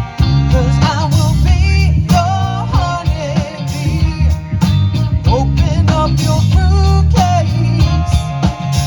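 Live horn band playing a funk-rock cover with drums and bass, a lead line sliding and bending in pitch over a steady beat.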